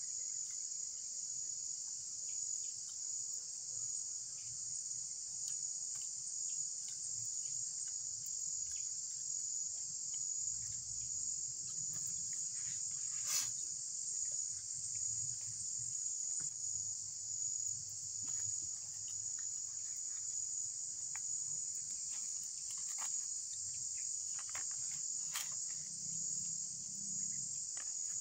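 A steady, high-pitched insect chorus that runs without a break, with a few faint clicks and taps over it. The sharpest click comes about 13 seconds in.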